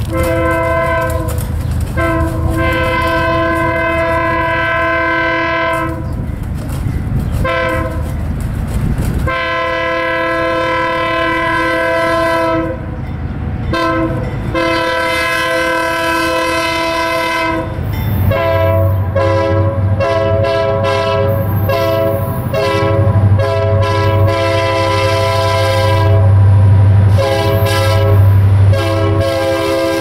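Diesel locomotive air horns sounding a run of long and short blasts, several notes together in a chord, with short breaks between blasts. Under them runs the rumble of the passing locomotives and train, much louder in the second half.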